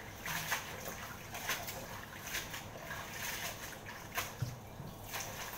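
Watercress being rinsed by hand in water: soft, irregular sloshing and splashing as the leaves are swished and rubbed clean.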